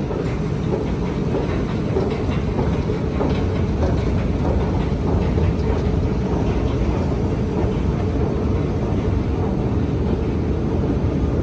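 Moving escalator running with a steady low mechanical rumble and a faint even hum, mixed with underground station noise.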